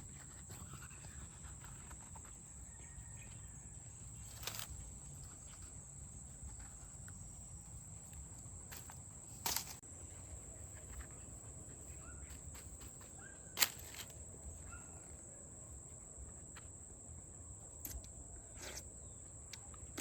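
Outdoor rural ambience: a steady high insect drone over a low rumble, broken by a few sharp clicks or knocks, the loudest about two-thirds of the way through.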